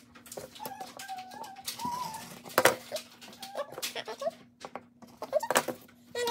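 Rotary cutter rolling through layered tulle against a steel ruler on a cutting mat, with the tulle and ruler handled between strokes: a run of clicks and light rustles, with a sharper knock about two and a half seconds in and another near the end.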